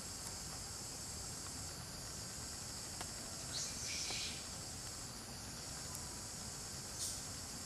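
Steady high-pitched insect chorus. A few faint clicks and two short scuffing noises cut across it, one about halfway through and one near the end.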